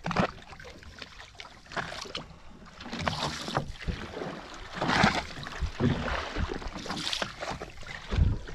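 Sea water splashing and slapping against the hull of a small outrigger fishing boat in irregular surges, with a low thump near the end.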